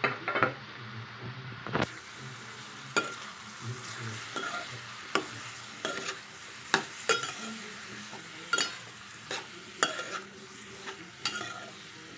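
Metal spoon stirring chopped potatoes, yellow cucumber and tomatoes in a metal pan, clinking and scraping against the pan at irregular intervals, about once or twice a second, over a faint sizzle of the frying oil.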